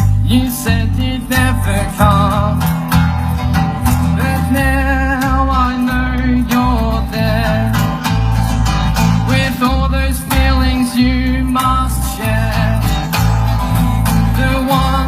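A live band playing a song: strummed guitar over a moving bass line, with singing.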